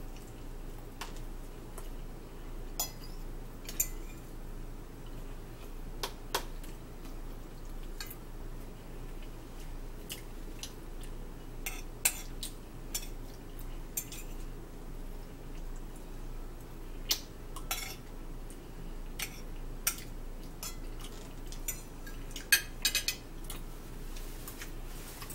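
Metal forks clinking and scraping on ceramic dinner plates, irregular clicks every second or two, some sharper than others. A steady low hum runs underneath.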